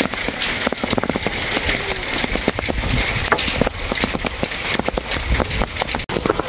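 Hailstones and rain striking hard surfaces: a dense, irregular clatter of sharp ticks over a steady hiss.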